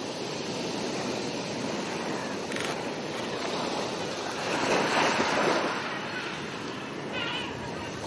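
Small waves washing up onto a sandy beach, with a louder wash of surf a little past halfway.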